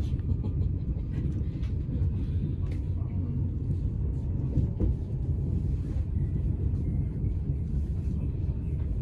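DSB IR4 (Litra ER) electric multiple unit running on the line, a steady low rumble of wheels on track with faint scattered clicks.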